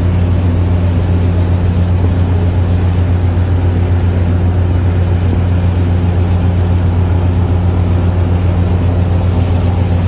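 Ferry under way, its engines giving a steady, unchanging low drone with a constant hum under a haze of rushing noise.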